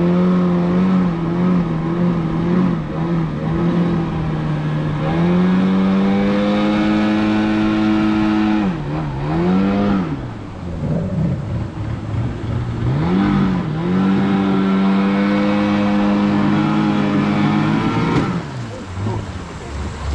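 Longboat outboard motor running under way. Its revs rise about five seconds in, dip and pick up again twice around the middle, and drop away near the end.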